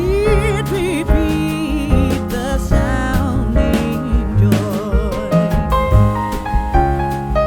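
Background music: a singing voice with vibrato over piano or keyboard and a steady beat.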